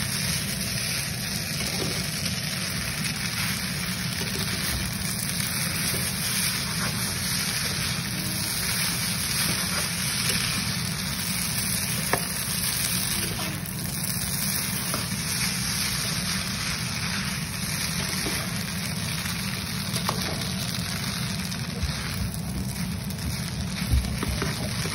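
Rice noodles and vegetables sizzling steadily in a nonstick pan as they are stir-fried with a spatula, with a few light taps and scrapes of the spatula against the pan.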